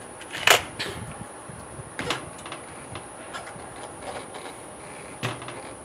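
Sharp clicks and knocks from handling a scoped CO2 air rifle as it is readied and brought up to aim. The loudest click is about half a second in, with others near two seconds and just past five seconds.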